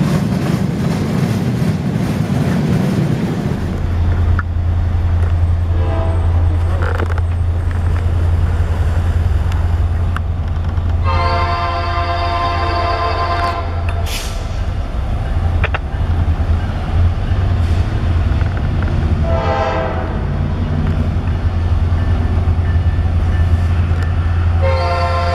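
A freight train rolls past on steel wheels. After a cut, an approaching diesel freight locomotive runs under load with a deep steady drone and sounds its air horn: a long blast about halfway through, a short one later, and another long one beginning near the end.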